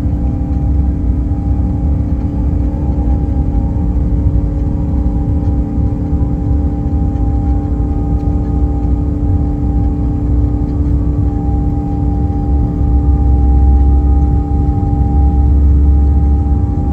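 Airbus A350-900's Rolls-Royce Trent XWB engines at takeoff thrust, heard from inside the cabin on the takeoff roll down a wet runway: a steady engine whine over a dense low rumble. The rumble grows heavier about three-quarters of the way through.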